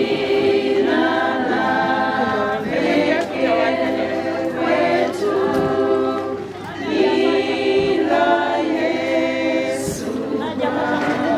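A choir singing long held phrases, with a short break about six and a half seconds in.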